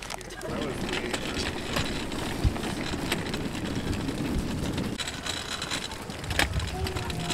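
Wheels of a collapsible folding wagon rolling over pavement, a steady grainy rumble.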